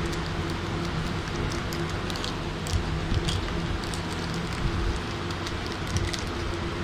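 Plastic wrapping crinkling and crackling in irregular little clicks as a new smartphone is handled and lifted out of its box, over a steady low hum.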